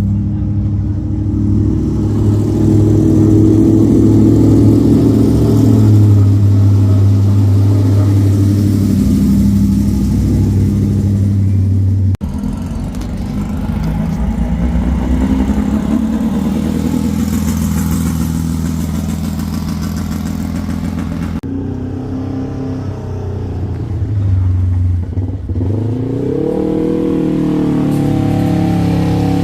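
Off-road race vehicle engines running at low speed, the engine sound changing abruptly twice; near the end one engine revs up, its pitch rising.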